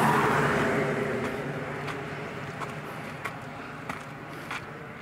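A road vehicle passes close by, loudest at the start, its engine and tyre noise fading away as it recedes. After it, footsteps on gravel tick at an even walking pace.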